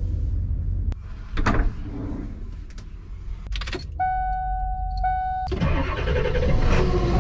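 Ford shuttle bus being started from the driver's seat: a steady dashboard chime sounds, briefly breaks, then sounds again. After that, the engine cranks and catches, running on as a loud rumble through the end.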